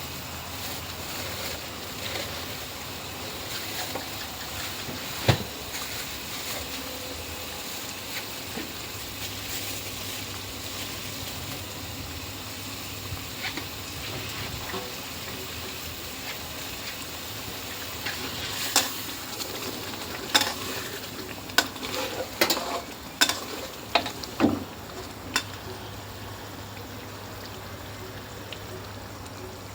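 Food sizzling as it fries in a pan, stirred with a utensil. Over the last third, a run of sharp knocks and clacks from the utensil striking the pan.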